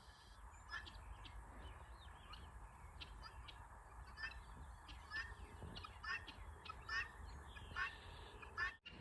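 A goose honking, a string of short calls about once a second.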